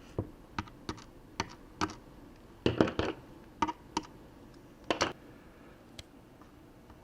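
Irregular light clicks and taps of a screwdriver and small screws against a laptop's plastic bottom case as its T8 Torx screws are taken out. The clicks are loudest in a short cluster about three seconds in and another about five seconds in.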